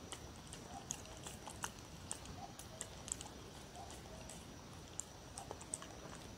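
A dog chewing and crunching pieces of raw cucumber: quick, irregular crisp crunches and wet mouth clicks.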